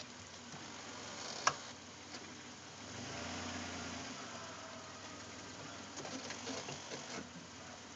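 2005 Chrysler Town and Country van idling, with one sharp pop about one and a half seconds in: the loud popping the van makes when shifted between Park, Neutral and Drive. A low hum swells for about a second a little later, and a few fainter clicks follow near the end.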